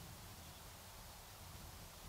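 Near silence outdoors: a faint, uneven low rumble of wind on the microphone over a steady soft hiss.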